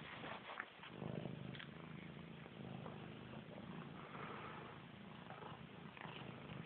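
Domestic cat purring close to the microphone, a steady low rumble that grows stronger about a second in, with a few soft clicks near the start.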